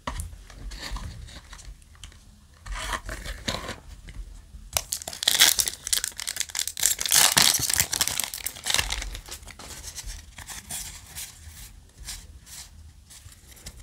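A Yu-Gi-Oh! King's Court foil booster pack being torn open by hand, the wrapper crinkling as it rips; the loudest tearing comes about five to eight seconds in, after some rustling as the pack is taken from the box, and the cards inside are handled near the end.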